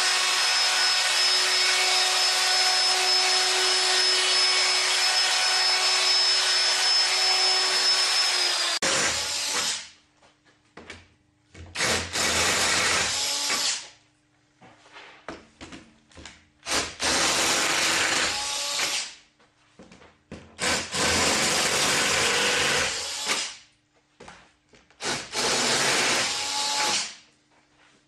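An electric hand router runs steadily along the edge of a curved wooden table rail for about nine seconds with a high, even whine, then stops. Next, an electric drill with a 15 mm bit bores holes into the wooden table top in four separate bursts of two to three seconds each, with short pauses between them.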